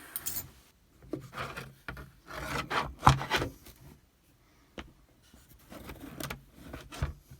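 Small tools and objects being shuffled and slid around on a workbench. Irregular scraping and rubbing, with a sharper clack about three seconds in.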